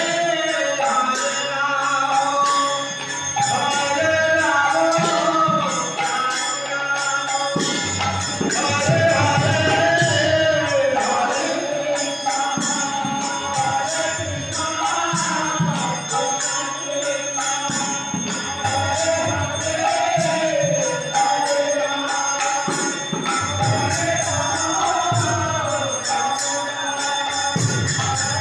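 Devotional kirtan: a group singing a chant together to harmonium, with drum strokes and jingling percussion keeping time.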